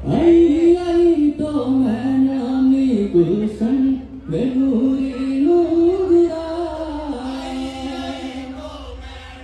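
Men singing a slow, chant-like melody in unison, without drums, holding long notes that step up and down in pitch. The line dips briefly about three to four seconds in, then carries on and fades near the end.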